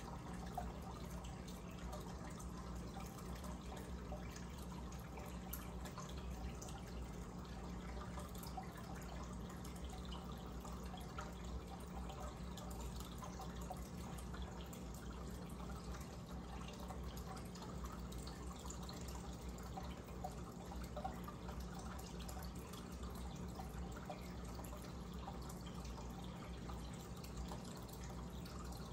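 Aquarium disc air stone bubbling steadily, a continuous fizz of fine bubbles with scattered small pops, over a low steady hum.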